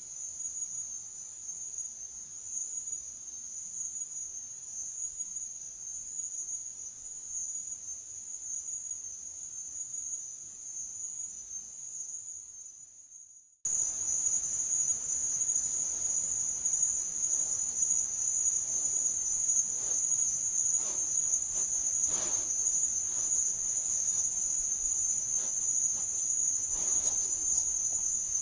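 Night insect chorus: a steady, high-pitched trill of crickets. It drops out for a moment about halfway through, then resumes just as before.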